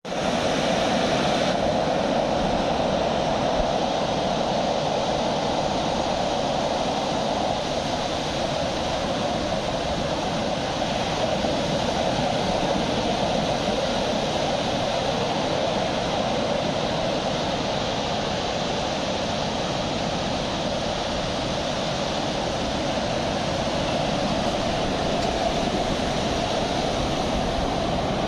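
Sea surf washing on a beach: a steady, unbroken rush of water.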